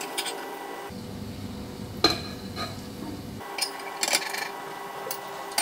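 Spatula scraping and tapping against a frying pan as fried fish fillets are lifted out onto a plate: scattered short clicks and scrapes over a steady low background noise.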